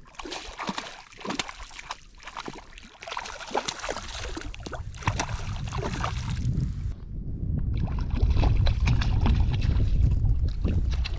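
Wind buffeting the microphone: a low rumble that builds from about three seconds in and is strongest near the end, over scattered short knocks and clicks.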